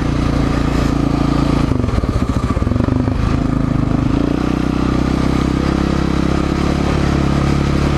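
Yamaha Raptor 700 quad's single-cylinder four-stroke engine running under throttle on a dirt track, with wind and tyre rush. The engine note wavers about two seconds in, then holds steady.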